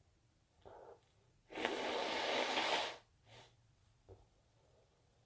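A person breathing hard in the middle of an induced sneezing fit: a short gasp, then a loud rushing exhale lasting about a second and a half, and a couple of small breaths after.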